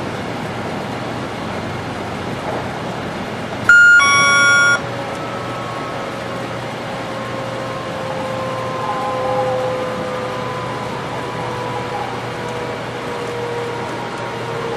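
500 series Shinkansen cab: the ATC signal-change chime rings once about four seconds in, loud and about a second long, marking the drop to a lower ATC speed signal and the automatic ATC brake application. Under the steady running noise, a faint motor whine then falls slowly in pitch as the train slows.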